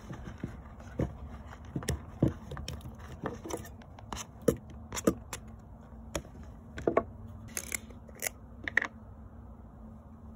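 Knife blade scraping and knocking against a plastic cutting board and mixing bowl as diced raw meat is pushed off into the bowl: an irregular string of sharp clicks and taps that thins out near the end.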